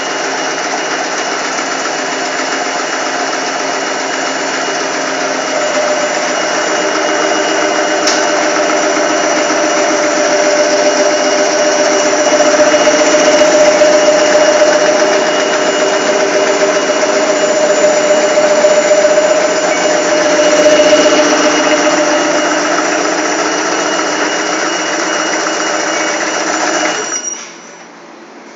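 Sausage slicing machine running continuously as it cuts sausages on the diagonal: a steady mechanical whine with several held tones, growing louder toward the middle. It shuts off abruptly near the end, leaving a faint hum.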